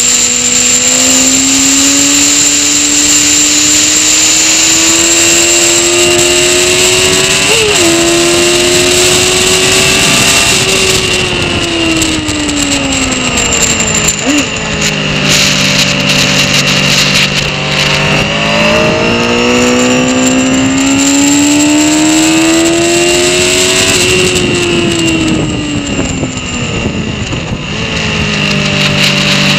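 Honda CBR motorcycle engine under hard acceleration on a race track, heard from an onboard camera over a steady wind rush. The revs climb with a gear change about 8 s in, fall under braking to a quick downshift blip around 14 s, hold low through a corner, then climb again from about 19 s and ease off after about 24 s.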